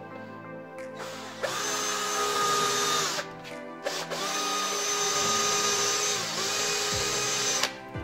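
AEG cordless drill running into a metal door frame in two bursts, a short run of about a second and a half and then a longer one of about three seconds. Each run carries a steady motor whine that winds up as it starts and drops away as it stops.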